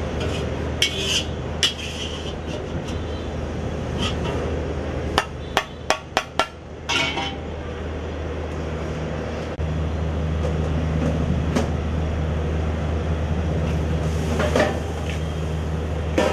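Sharp metal knocks and clatter of steel cookware being handled, with a quick run of about five knocks about five seconds in, over a steady low hum.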